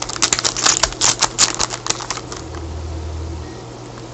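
Trading cards being flicked through and shuffled by hand: a quick run of light clicks and snaps that thins out after about two seconds. A brief low hum comes in near the middle.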